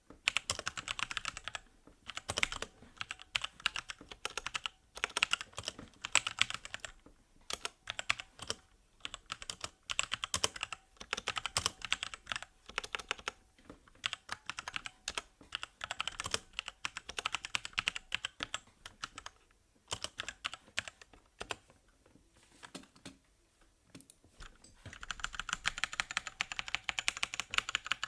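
Typing on an SPC Gear GK550 mechanical keyboard with Kailh Brown tactile switches and pudding keycaps, keystrokes coming in quick bursts with short pauses. After a brief lull, a faster, denser run of keystrokes starts near the end.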